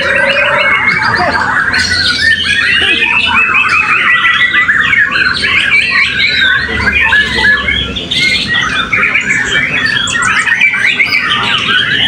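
Many caged white-rumped shamas singing at once: a loud, dense chorus of short, overlapping whistled phrases and chirps with no break.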